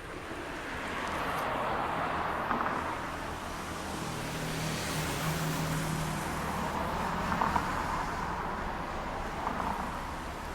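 Road traffic passing: cars' tyre and engine noise swelling about two seconds in, holding, and easing off near the end.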